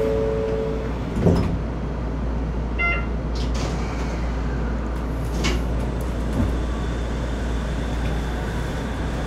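Steady low hum heard inside the cab of a Shonan Monorail suspended-monorail car, with a single knock about a second in and a short electronic beep about three seconds in.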